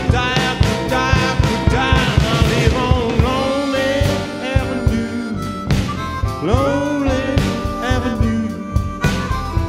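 Blues band instrumental break: a harmonica plays bent, sliding notes over a steady drum beat with bass and guitar backing.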